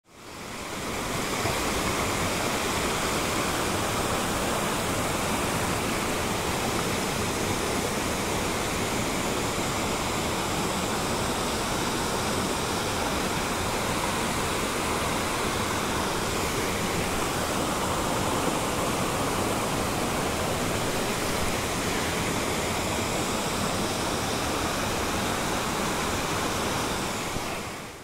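Steady rush of water in a small mountain stream, an even hiss with no change, fading in at the start and out just before the end.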